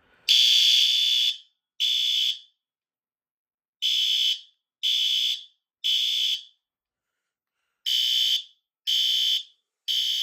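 System Sensor PC2R ceiling-mount horn/strobe sounding its electronic horn in the temporal-three evacuation pattern: a high-pitched blaring tone in groups of three short blasts with a longer pause between groups. The first blast runs about twice as long as the rest.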